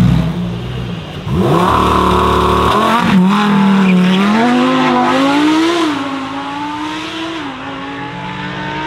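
Lamborghini Huracán STO's V10 revved up and held steady at a high pitch for about a second and a half, typical of a launch-control rev hold. It then accelerates away under full throttle, with the revs climbing and two upshifts about six and seven and a half seconds in, growing a little quieter as the car pulls away.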